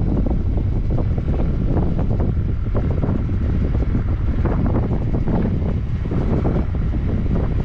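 Wind rumbling and buffeting on the microphone of a moving Honda Pioneer side-by-side, with the vehicle's running noise underneath; loud and steady throughout.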